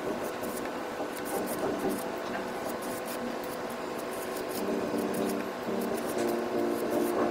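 A small scraper spreading thermal conductive gel across a water-cooling heat sink plate, in repeated short rubbing and scraping strokes.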